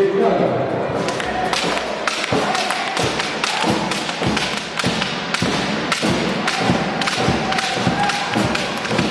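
Basketball crowd in a gymnasium making rhythmic thuds and claps, about two or three a second, with chanting voices underneath.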